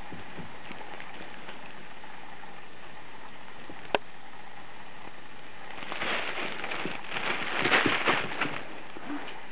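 Crinkle tunnel crackling and rustling as a kitten pounces at it, starting about six seconds in and loudest near the end. A single sharp click comes about four seconds in.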